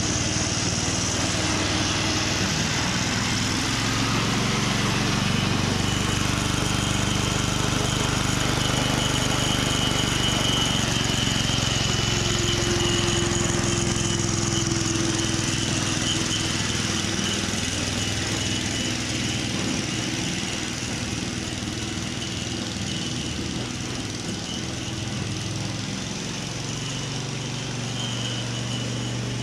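Petrol engine of a Ransomes Marquis cylinder lawn mower running steadily while mowing, getting a little quieter in the second half.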